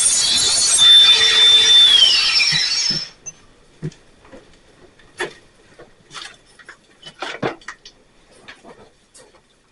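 A power tool running loudly with a high whine that drops in pitch about two seconds in, then cutting off about three seconds in; afterwards, scattered light knocks and clicks.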